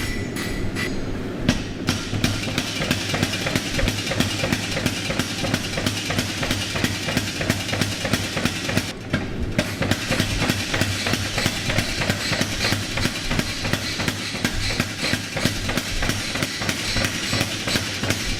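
Power hammer striking a hot damascus billet in fast, steady blows, drawing the steel out thinner. The blows stop briefly about nine seconds in, then carry on.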